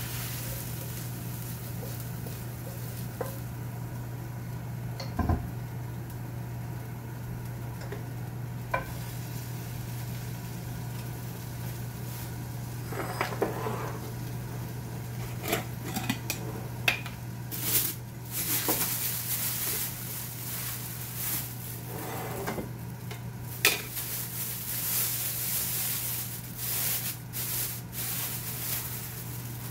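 Wooden spatula scraping fried kimchi from a frying pan into a glass pot, with a sharp knock about five seconds in. In the second half, a plastic jar lid and a plastic bag are handled, giving clatter and crinkly rustling. A steady low hum sits underneath throughout.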